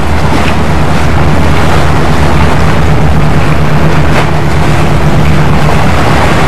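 Loud, steady low drone of a boat's engine running, with an even rushing noise over it.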